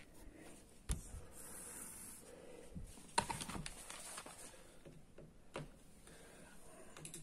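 Tools being handled on a workbench: a knock about a second in, a short clatter of small clicks a little after three seconds, and another click later, with no drill running.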